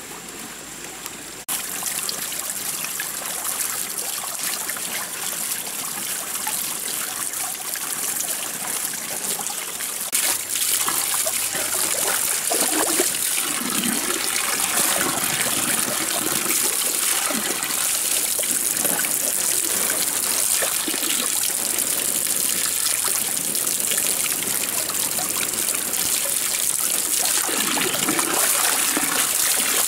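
Water from a bamboo pipe spout pouring steadily into a plastic-lined bathtub, with uneven splashing of water in the tub as a person washes in it. The pouring gets louder about a second and a half in, and again about ten seconds in.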